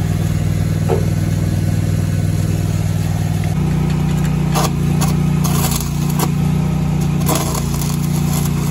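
Forklift engine idling steadily; about three and a half seconds in its pitch steps to a slightly higher, stronger hum. A few short sharp clicks or crackles come near the middle and later.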